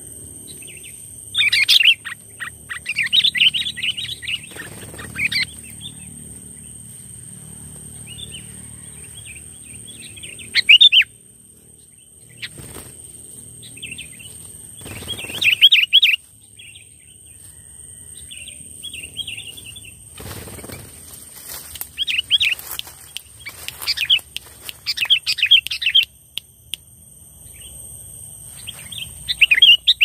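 Sooty-headed bulbul (kutilang) singing in short, fast bursts of chirping every few seconds, its song filled with prenjak (prinia) phrases, over a steady high tone.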